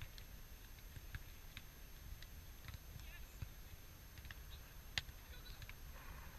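Faint beach ambience: a low steady rumble with distant voices and scattered light taps, one sharper tap about five seconds in.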